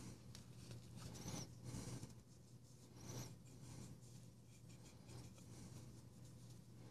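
Faint rubbing and scuffing of a cloth wiping oil and dust off a closed folding knife's titanium handle, a few soft strokes over a low steady hum.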